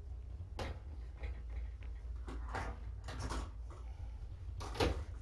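Scattered knocks and rustles of things being handled and moved about, the loudest a sharp knock near the end, over a steady low hum.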